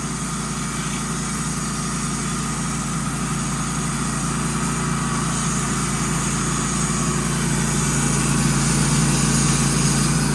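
Wood-Mizer portable band sawmill running steadily, engine and blade together, growing a little louder toward the end.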